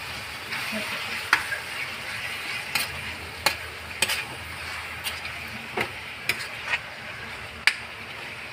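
Raw chicken pieces sizzling in a pan with sautéed garlic and onion, stirred with a spatula. The spatula scrapes and clicks against the pan a dozen or so times over a steady soft sizzle.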